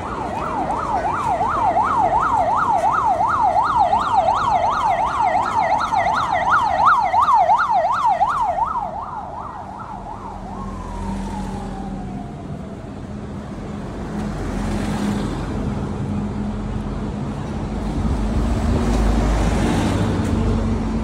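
An electronic vehicle siren on a fast yelp, about three rises and falls a second, winds down in one falling glide about halfway through. Then comes the low, steady drone of bus engines passing, swelling twice.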